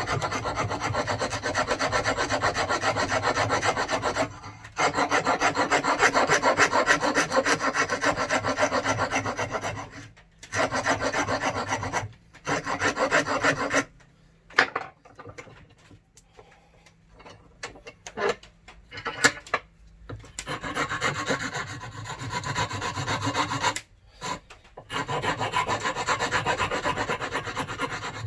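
Hand file rasping the edges of a piece of plywood in quick, repeated strokes while shaping it into a climbing hold. There are short pauses, and about halfway through a quieter stretch of a few seconds with scattered knocks.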